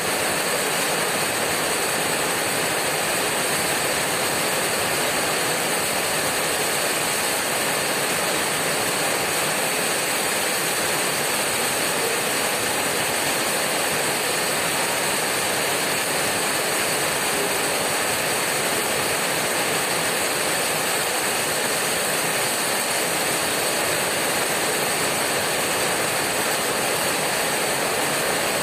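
Heavy rain hammering on a corrugated tin roof: a dense, steady patter of drops on the metal that holds even throughout.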